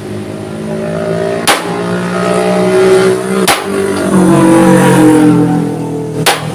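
A motor running loudly with a shifting, gliding pitch, broken by three sharp knocks.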